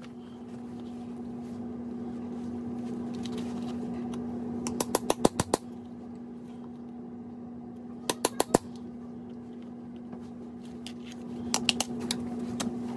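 Three short runs of rapid, sharp clicks or taps, several a second, over a steady low hum.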